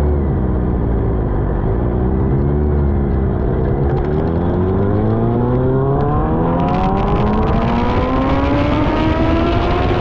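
Suzuki GSX-R600 inline-four engine under way, its pitch wavering for a few seconds and then rising steadily through the second half as the bike accelerates. A hiss of wind and wet-road spray grows louder from about seven seconds in.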